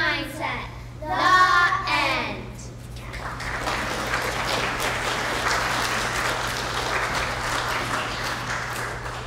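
Children singing the end of a song, finishing on a held note with vibrato about two seconds in, followed by an audience applauding steadily. A low electrical hum runs underneath.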